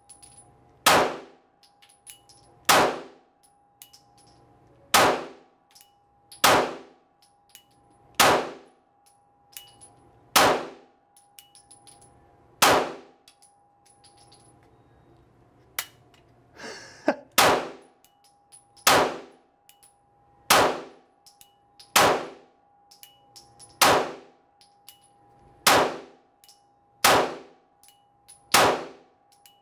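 FN 509 9mm pistol firing single shots in slow fire, about fifteen in all, one every one and a half to two seconds, each with a short ringing tail. There is one longer pause near the middle, where the stock trigger stuck.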